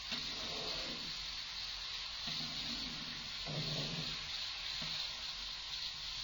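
Chopped sweet pumpkin frying in a kadai with a steady sizzle. Three duller sounds from the pan come in about once every second or so in the first four seconds.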